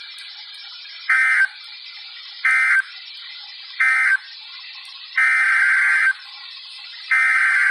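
Emergency Alert System digital data bursts over a steady hiss. Three short buzzy end-of-message bursts come about a second apart, closing the flash flood warning. Two longer header bursts follow, opening the next alert.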